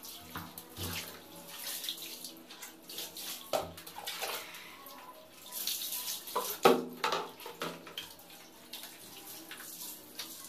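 Water poured from a plastic dipper over a wet cat and splashing onto a tiled floor, in short pours. A few sharp knocks come in between, the loudest about two-thirds of the way through.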